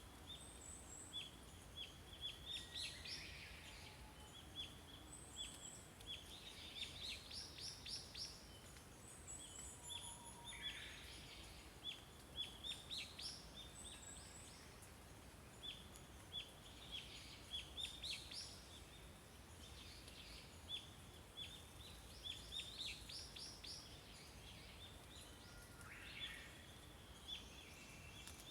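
Small songbirds chirping, repeating short phrases of rapid high notes every few seconds over a faint low background rumble.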